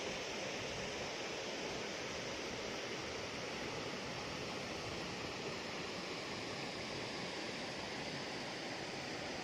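Shallow stream flowing over stones: a steady rush of running water.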